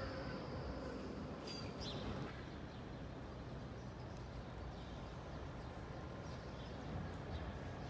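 Falling whine of a tram's electric traction motor as it slows, fading out at the very start, then a low steady rumble of street noise with a few faint clicks.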